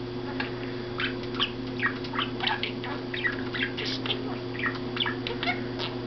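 Budgerigar chattering at its own reflection: a rapid, continuous stream of short chirps, clicks and garbled speech-like warbles, over a steady low hum.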